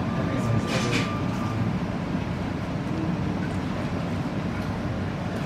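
Steady low rumble of restaurant background noise, with a brief light clatter about a second in.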